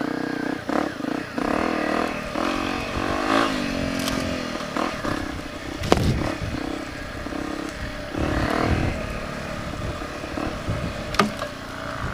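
Honda CRF250's single-cylinder four-stroke engine running at trail speed, its revs rising and falling as the throttle is worked, with a sharp knock about six seconds in and another near the end.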